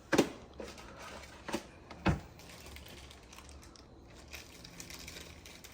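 Hands handling wiring and plastic parts: rustling and crinkling, with three sharp clicks in the first two seconds or so.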